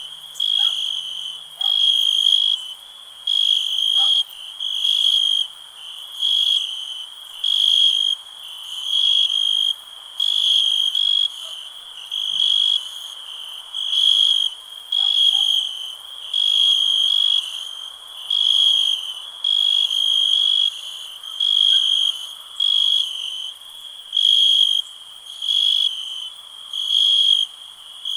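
A cricket chirping in regular high-pitched trills, each about a second long and repeating roughly every second and a half, over a faint background of other night insects.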